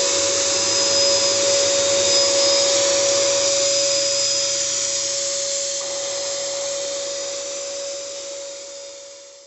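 Vectorfog C150 electric ULV cold fogger running, its motor blowing out spray mist with a steady rushing hiss and a constant whine. The sound fades out over the last few seconds.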